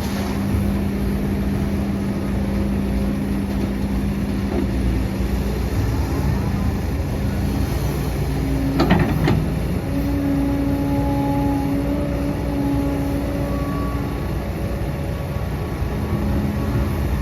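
Heavy diesel earthmoving machinery running steadily, its hum shifting a little higher partway through, with a short sharp metallic clank about nine seconds in.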